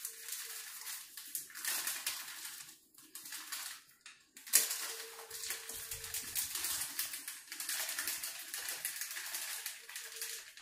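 Dry potato pancake mix pouring and being shaken out of a packet into a glass bowl, in several spells of gritty hiss, with a sharp tap about four and a half seconds in.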